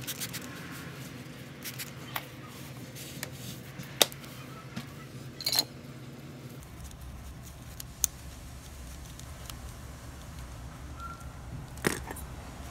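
Scattered clicks and knocks from handling the padlock and chemical containers at a workbench, the sharpest about four seconds in. Under them runs a steady low hum that deepens about six and a half seconds in.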